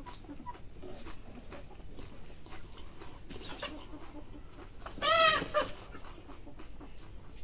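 A chicken squawks once about five seconds in, a loud call of about half a second that rises and falls in pitch. Under it are faint small clicks and rustles of eating rice by hand and chewing.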